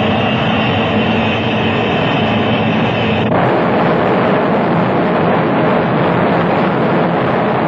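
Loud, steady jet engine noise from an English Electric Lightning's twin Rolls-Royce Avon turbojets. A high whine in it cuts out suddenly about three seconds in, leaving a broader, even rush.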